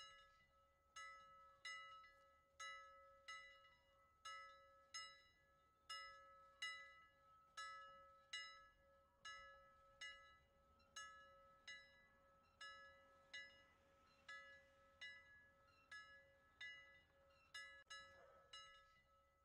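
Faint background music: a slow, evenly paced melody of plucked, bell-like notes, a little more than one a second, over a steady held tone.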